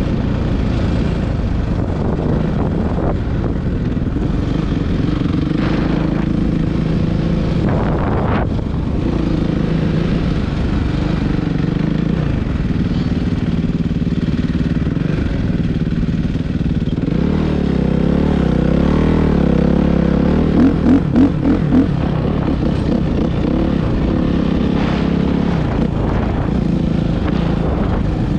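Suzuki RM-Z450 four-stroke single-cylinder dirt bike engine running while ridden, its pitch rising and falling with the throttle. About two-thirds of the way through it gets heavier, with four quick loud revs in a row.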